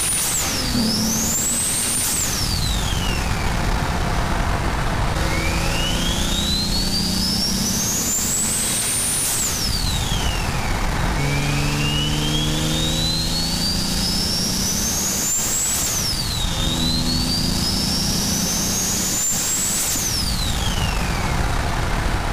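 Toyota Supra's single-turbo 2JZ inline-six pulling hard, heard through a microphone in the engine bay. The turbo's whistle climbs over several seconds to a very high pitch and then falls away quickly, three times, over the steady engine drone.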